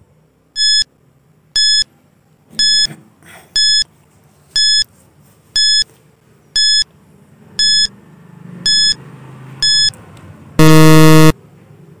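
Countdown timer sound effect: ten short, high electronic beeps about one a second, then a loud, lower buzzer lasting under a second, which signals that the time is up.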